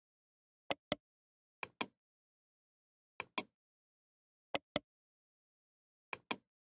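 Computer mouse clicking: five pairs of sharp clicks, the two clicks of each pair about a fifth of a second apart, with silence between the pairs.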